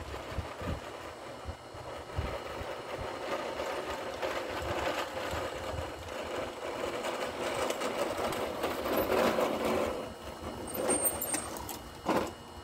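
Small engine of lawn equipment running steadily off to one side, its sound swelling and easing, with a sharp knock near the end.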